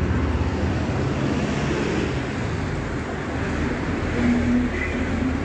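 Road traffic on a city street: a steady rumble of car engines and tyres passing, with a short, louder steady note about four seconds in.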